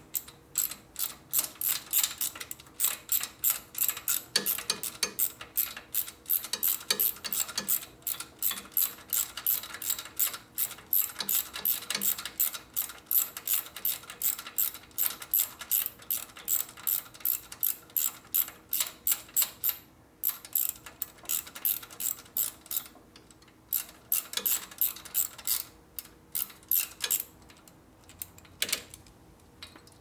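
Hand socket ratchet clicking in quick runs, about four clicks a second, as bolts are backed out of a motorcycle engine. There are short pauses, and only a few clicks near the end.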